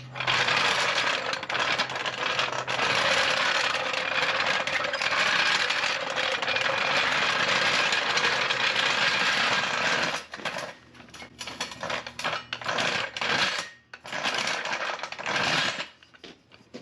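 Metal floor jack rolled on its small hard wheels across concrete, rattling steadily for about ten seconds. Then come a series of short, jerky rattles and knocks as it is pushed and pulled in fits and starts, not rolling easily over the lip at the garage entrance.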